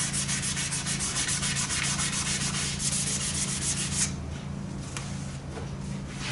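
Sandpaper on a block being rubbed by hand over primer surfacer on a car body panel, in rapid back-and-forth strokes. The strokes stop about four seconds in.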